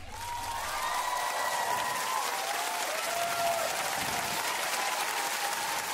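Studio audience applauding at the end of a live song, with a few long, high cheers over the clapping.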